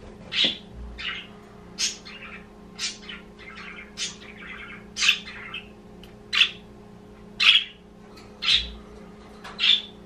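Pet budgerigars giving short, sharp chirps about once a second, a dozen or so in all, the loudest a little past the middle.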